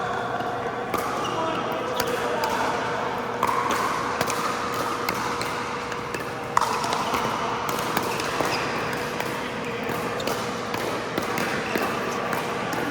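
Pickleball paddles hitting the hard plastic ball, and the ball bouncing on an indoor court: sharp pops scattered all through, the loudest about halfway. Behind them is a din of voices and a steady hum.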